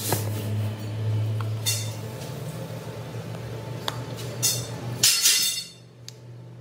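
Metal parts clinking against each other over the steady low hum of a running workshop machine motor, with a louder burst of clinks about five seconds in, after which the hum drops.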